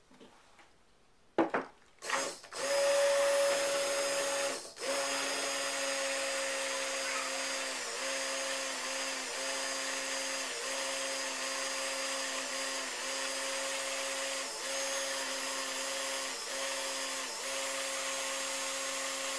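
Handheld stick blender running in raw soap batter, mixing it: two short pulses, then a steady motor whine with brief dips now and then as it is worked through the batter.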